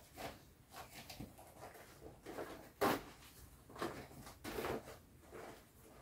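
Deflated vinyl of an Intex Wave Rider GP500 inflatable jet ski being folded and rolled up by hand: irregular rustling and crinkling of the plastic, with one sharper, louder noise about three seconds in.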